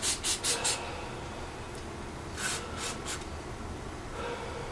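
Hand cleaning of small Briggs & Stratton plastic carburetor parts: a quick run of short, scratchy strokes in the first second, then three more a little past the middle.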